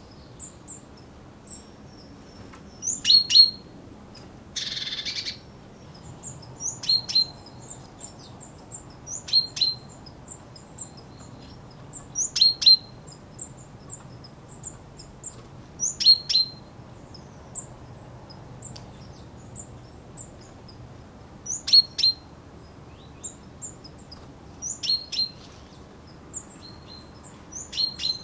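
Male common chaffinch giving sharp, repeated calls rather than song. Each call is a quick downward-sweeping note, given in clusters of two or three about every three seconds. A brief hiss comes about five seconds in, and faint high chirps sound in the background.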